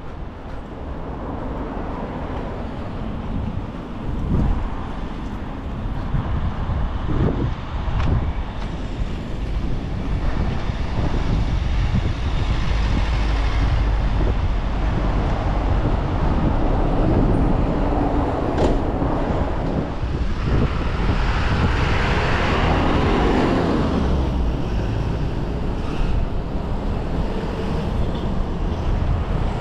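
Road traffic: motor vehicles passing close by with a steady low rumble, swelling to its loudest as vehicles go past about two-thirds of the way in.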